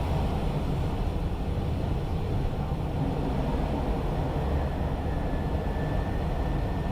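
Steady rushing cockpit noise of an Airbus A320 in flight on approach: airflow and engine hum, heaviest in the low range. A faint high steady tone comes in about two thirds of the way through.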